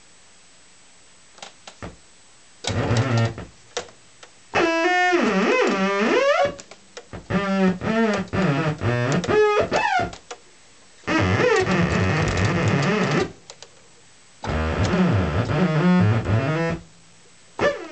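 Moog Rogue monophonic analog synthesizer playing spacey bursts of tone whose pitch swoops and wobbles up and down as the pitch wheel and knobs are worked, with short silences between phrases. Some bursts have a noisy, buzzing edge.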